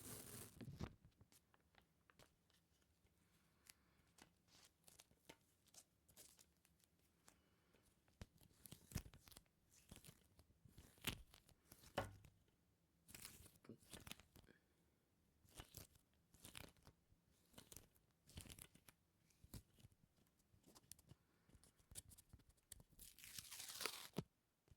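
Faint, close-miked ASMR sticky sounds: scattered soft clicks and crackles of something tacky pulling apart, a little louder around the middle and thicker near the end.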